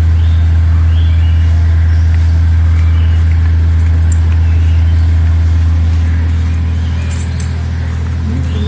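Steady, loud low mechanical hum, like a running engine or motor, holding one pitch throughout.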